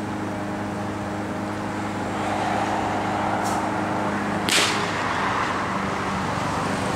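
Skateboard wheels rolling on asphalt under a rider seated on a toilet, the rolling rumble starting about two seconds in, with one sharp clack about halfway through. A steady low mechanical hum runs underneath.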